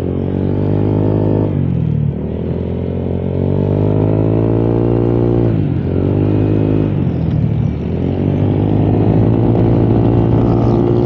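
Honda Click 125i scooter's single-cylinder engine and CVT pulling under throttle on a test ride. The pitch climbs, drops briefly about a second and a half in and again near the middle, then rises and holds high. It runs normally now that the loose crankshaft drive-face nut has been retightened.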